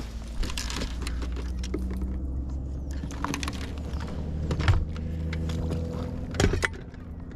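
A boat motor running with a steady low hum and a few shifting tones, with scattered clicks and knocks of gear being handled on the deck.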